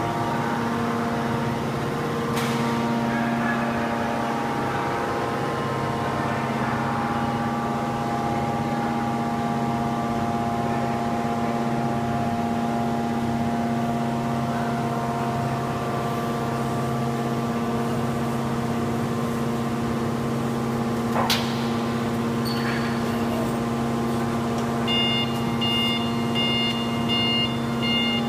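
Hydraulic power unit of a car-crushing press running with a steady, even hum. There is a single sharp knock about three-quarters of the way through, and a series of regular electronic beeps starts near the end.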